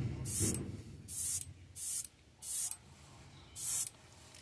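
Airbrush spraying black paint in about five short hissing bursts, each under half a second, with a longer pause before the last. It is running at around 20 psi air pressure.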